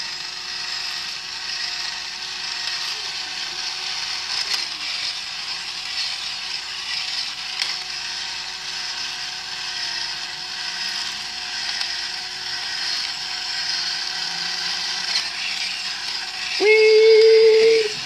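Toy walking robot's small electric motor and gearbox running steadily as it moves, a whir with a steady hum. It runs smoothly on a newly fitted replacement inner gear that fits properly. Near the end a louder steady tone sounds for about a second.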